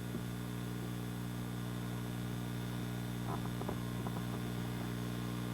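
Steady electrical mains hum with a few faint ticks a little past the middle.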